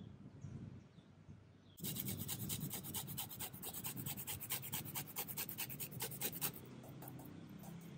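A kitchen utensil scraping rapidly in a bowl, about seven even strokes a second for roughly four seconds, as when stirring or whisking a marinade, then stopping.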